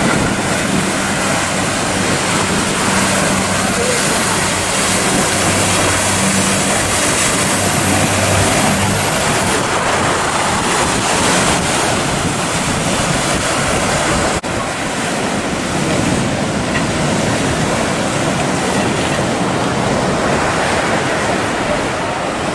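Steady rush of surf and breaking waves, with wind buffeting the microphone. A boat's engine drones low under it through the first half, and the sound changes abruptly about two-thirds through.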